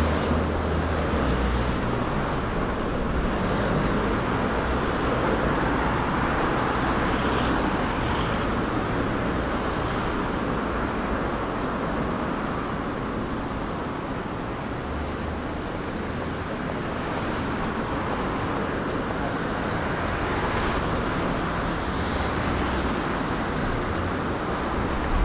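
Steady road traffic on a busy city street: a continuous rushing noise of passing cars and other vehicles, with a low engine rumble that swells and fades a few times.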